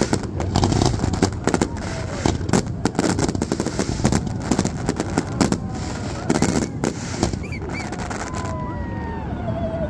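Fireworks display: aerial shells and comets bursting overhead in a dense, irregular barrage of bangs and crackles that goes on without a break.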